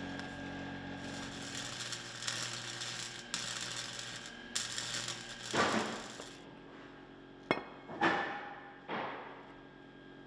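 Arc welding crackling in two runs as a rebar handle is welded onto a piece of H13 tool-steel stock, followed by three sharp knocks.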